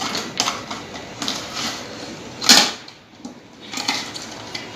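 Small clicks and knocks of a circuit breaker and its wiring being handled as the phase wire is undone from its terminal, with one louder knock about halfway through.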